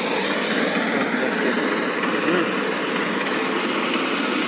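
Walk-behind paddy reaper with a 4.5 HP petrol engine, running steadily under load as it cuts rice.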